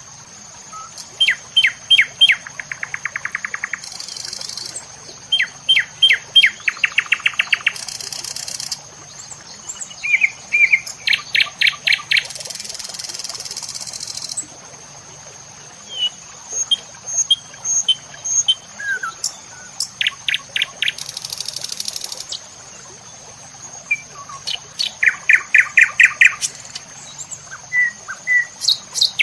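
Songbirds calling: quick series of sharp chirps and short trills, repeated every few seconds, over a steady high-pitched whine with short bursts of high hiss.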